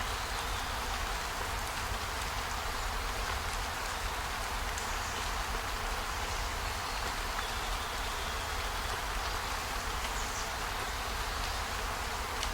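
Steady rain, an even hiss with a few faint ticks of drops.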